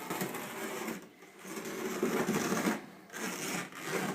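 A knife slicing through excess window screen along the frame, a scratchy rasping cut in about three strokes with short pauses between.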